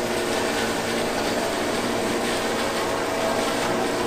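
Motorboat engine running steadily, heard from on board, with a steady hum over an even hiss of water and air.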